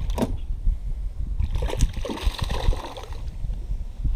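A hooked bass splashing at the water's surface beside the boat: a short splash at the start, then a longer bout of splashing from about a second and a half in. Low wind rumble on the microphone runs underneath.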